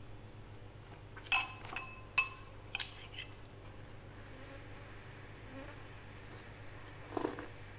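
Eating by hand from a stone mortar and dishes: two sharp clinks with a brief ringing about a second and two seconds in, a few lighter ticks after them, and a softer clatter near the end. A faint steady high-pitched whine runs underneath.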